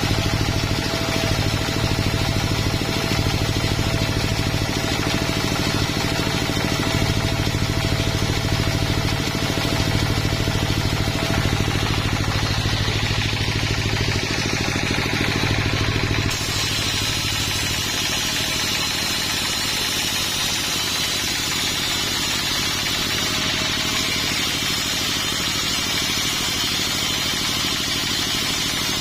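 A sawmill running, its engine a steady drone under the noise of the saw. About halfway through, the sound changes abruptly to a thinner, hissier running with less low hum.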